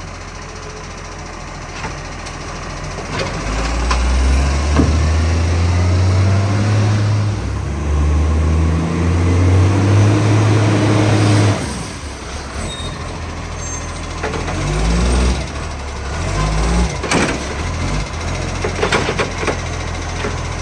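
Garbage truck's diesel engine revving up for about eight seconds, then dropping back to idle, on a truck with a large exhaust leak. Several clanks follow near the end.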